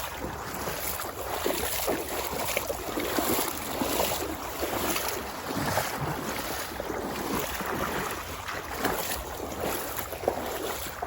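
Steady rushing noise of flowing creek water, swelling and easing unevenly.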